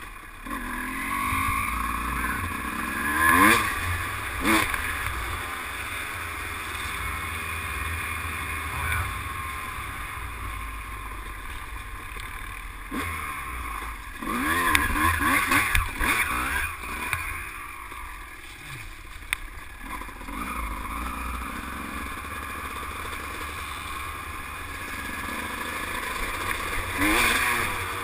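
Dirt bike engine running under way on a rough trail, its revs rising and falling with the throttle, with sharper bursts of revving a few times, about three seconds in, in the middle and near the end.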